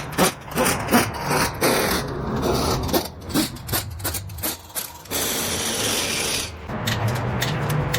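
Hand scraping or filing strokes, quick and uneven, then a steadier rasping hiss for about a second and a half from about five seconds in.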